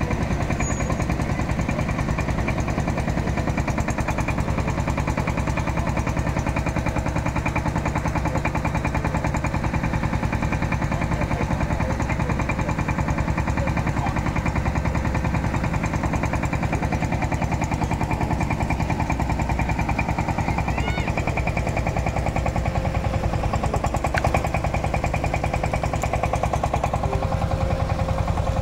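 Fishing boat's diesel engine running with a fast, even chugging beat.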